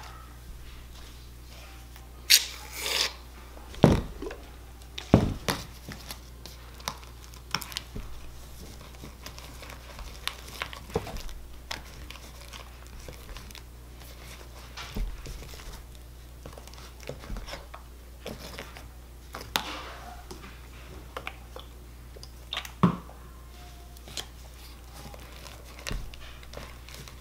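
Thick fluffy green slime being stirred in a clear plastic tub with a plastic fork: irregular sticky squishing and tearing sounds, with the fork clicking and scraping against the tub and a few louder knocks. The slime is thickening and starting to pull away from the sides of the tub.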